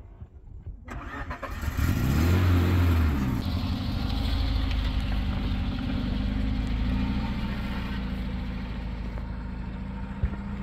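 A vehicle engine starts about a second in, revs up briefly, then settles and runs steadily.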